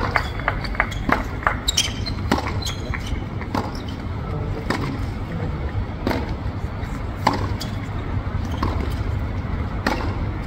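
Tennis rally on a hard court: irregular sharp pops of rackets striking the ball and of the ball bouncing, over a steady low rumble.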